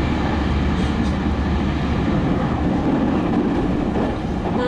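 Running noise inside a JR Central 315 series electric train travelling at speed: a steady rumble of wheels on rail with a low hum underneath.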